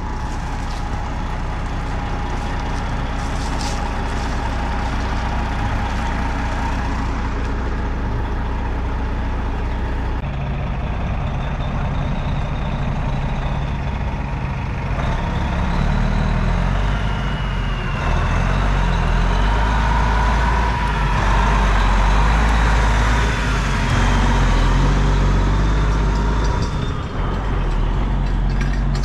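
Diesel semi-truck engine running as the tractor-trailer hauls a loaded lowboy, the rumble growing heavier about a third of the way in and louder past the middle as it pulls away and passes. A whine rises and falls in pitch over the louder stretch.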